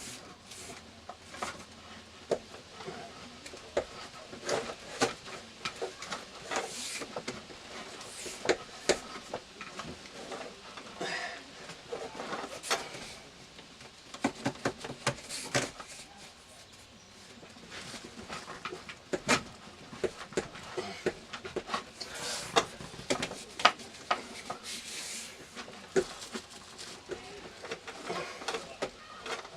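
Irregular clicks, knocks and scraping from thick 8-gauge electrical wire being handled and pushed through a tube around tight bends, with the wire snagging and going through hard.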